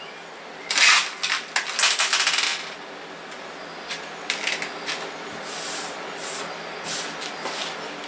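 Small metal computer screws clinking and rattling as a hand rummages through them, busiest for a second or two near the start, then a few scattered single clicks.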